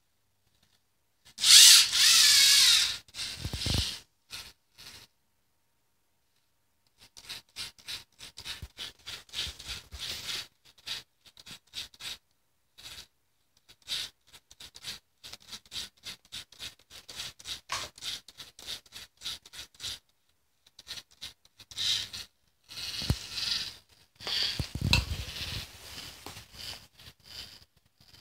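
LEGO Mindstorms EV3 servo motors and gear trains whirring in short, rapid bursts back and forth as the self-balancing robot keeps itself upright on its two wheels. A louder burst lasting about two seconds comes near the start.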